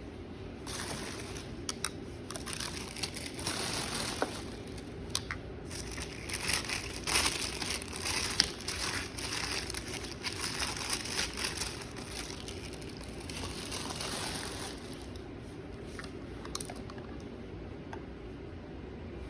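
Packaging crinkling and rustling as it is handled and unwrapped, with a few sharp clicks and taps. It dies down about fifteen seconds in.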